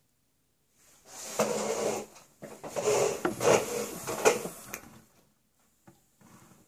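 A vaper taking a hit from a mechanical mod with a Nimbus rebuildable dual-coil atomizer: rushing air, first a stretch of about a second, then a louder, uneven draw of about two seconds with sharp peaks.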